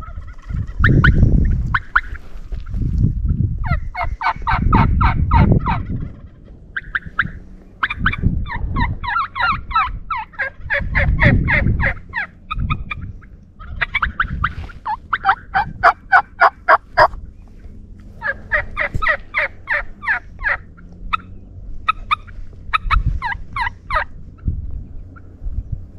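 Wild turkey gobbling over and over, each gobble a quick rattling burst about one to two seconds long, coming every few seconds. Deep low rumbles sound between the gobbles in the first half.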